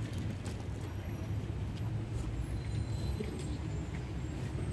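Busy outdoor night-market ambience: a steady low rumble of street noise, with a few faint clicks and knocks.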